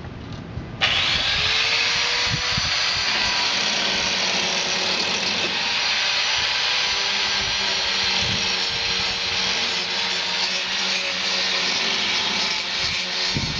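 Angle grinder grinding the steel bar of a gate, a loud, steady high hiss of disc on metal. It starts abruptly about a second in.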